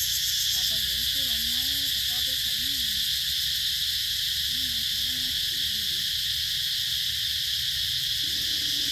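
Steady, high-pitched drone of an insect chorus, with faint snatches of a voice in the first few seconds.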